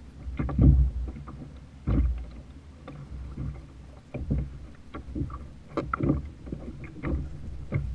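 Choppy sea water slapping and lapping against a fishing kayak's hull, with irregular knocks and low thumps.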